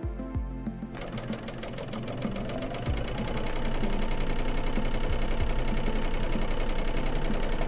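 Bernina L850 overlock (serger) sewing at half motor power. After a few light clicks it starts about a second in, with a fast, even stitching clatter that speeds up and grows louder over the next few seconds, then runs steadily.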